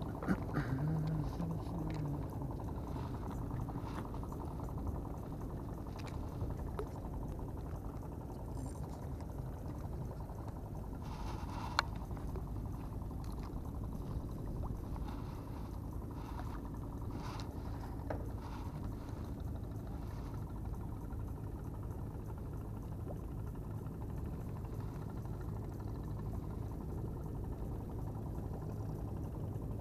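Steady low rumble with a faint engine hum from a distant boat, and a few light clicks from the spinning rod and reel being handled.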